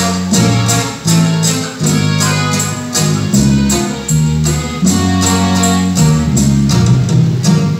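Live norteño band music: accordion and guitars playing together over a steady beat, with a deep bass line.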